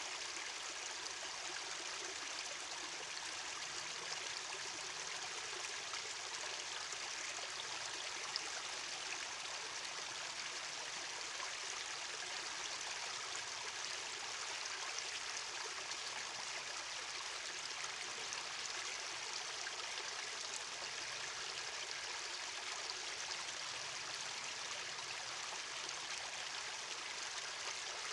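Shallow creek water running over a sloping rock ledge and around stones: a steady, even rushing with little deep rumble.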